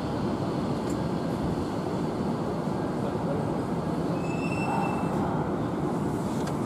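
Running noise of a Tobu 70090 series commuter train heard from inside the passenger car: a steady rumble of wheels on rail, with a brief high squeal of the wheels about four seconds in.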